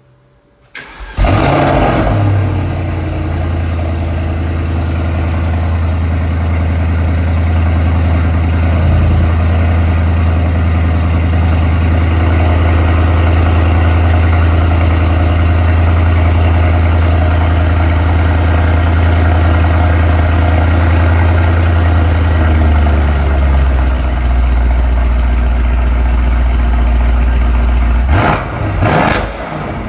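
Mercedes-AMG C63's twin-turbo V8 cold-starting about a second in with a loud flare, then settling into a steady high cold idle that later drops to a lower idle. Near the end come two quick revs.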